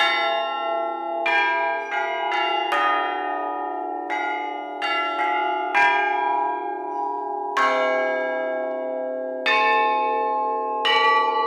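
Hanging bronze bells struck one after another with a hand hammer: about a dozen strikes of different pitches at uneven intervals, each bell ringing on and overlapping the next.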